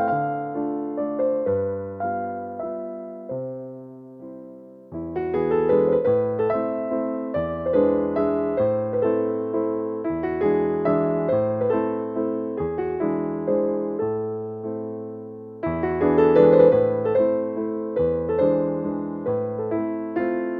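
Soft background piano music. The playing dies down about four seconds in, then picks up again with fuller chords.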